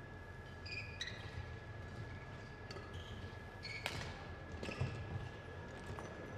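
Badminton rally: a shuttlecock struck back and forth by rackets with sharp, spaced clicks, and shoes squeaking in short chirps on the court floor, under a faint steady high whine.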